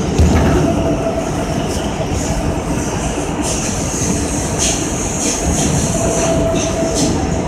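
A New York City Subway R160 train running through a tunnel, heard from the front cab: a steady loud rumble of wheels on rail. From about halfway a high-pitched wheel squeal and hiss grows, with a few sharp clicks over the rail joints.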